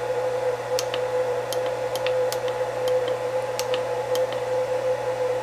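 Huanyang VFD keypad buttons clicking as they are pressed repeatedly to scroll through parameters, roughly one or two presses a second at an uneven pace. A steady hum at a constant pitch runs underneath throughout.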